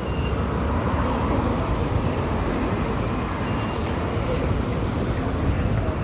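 Steady din of busy city surroundings: traffic noise.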